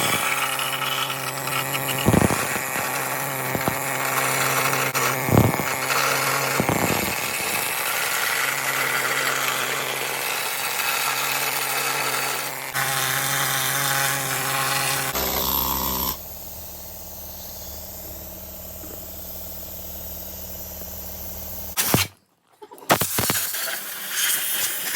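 A power tool running steadily on metal, with a few sharp knocks in the first several seconds, then a quieter steady stretch after an edit cut.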